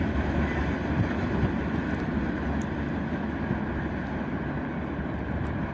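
Freight train wagons rumbling past on the rails, the sound slowly dying away.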